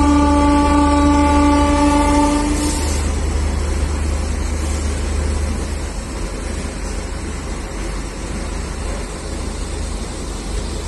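A locomotive horn sounds one steady tone that stops about two and a half seconds in, over the low rumble of a passenger train's coaches rolling past on the next track. The rolling rumble continues, a little quieter in the second half.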